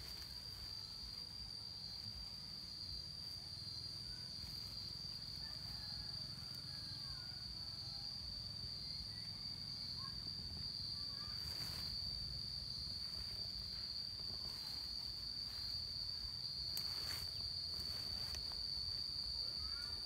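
Insects trilling in one steady high note throughout, over a low rumble, with a few faint clicks.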